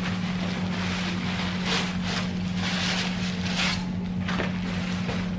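Rustling and crinkling of a gift bag and wrapping being pulled out of a cardboard box, in several short bursts over a steady low hum.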